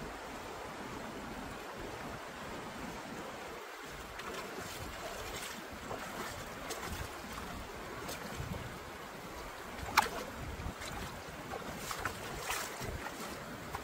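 Steady rushing noise like wind on the microphone, with a few sharp clicks and knocks scattered through it, the loudest about ten seconds in.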